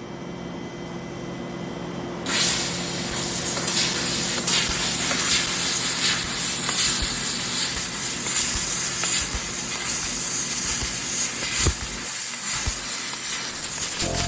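A 2,000-watt fiber laser cutter begins cutting about two seconds in: a loud steady hiss of 10-bar compressed-air assist gas through the cutting nozzle, with scattered crackles, over a low machine hum.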